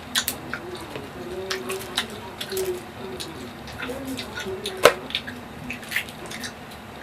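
Close-up wet, juicy eating of rambutan fruit: irregular clicks, smacks and squishes from chewing the flesh, with one sharp snap about five seconds in.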